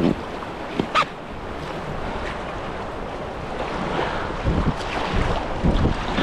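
River water rushing around a kayak, with wind buffeting the microphone. Two sharp splashes near the start; the rush and wind rumble grow louder in the second half.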